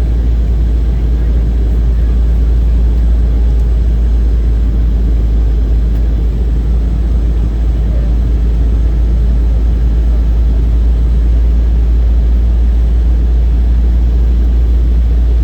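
Steady low drone inside the passenger cabin of an Embraer 190 airliner in flight: engine and airflow noise.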